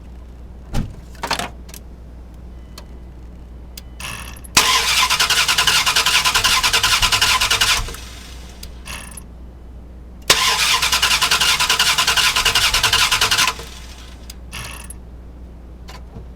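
2000 Dodge Durango's 5.9-litre V8 cranked twice by the starter, about three seconds each time, after a few light clicks. It cranks at a really fast speed but never fires: a no-start with a healthy battery and starter.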